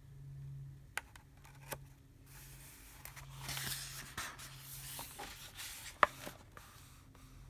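Paper pages of a picture book being handled and turned: a rustling sweep of paper through the middle, with a few sharp clicks and taps, the loudest about six seconds in.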